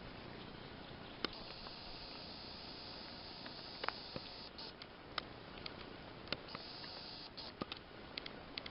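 Spring forest ambience: a steady hiss with a dozen or so faint, irregular clicks and snaps, more of them towards the end.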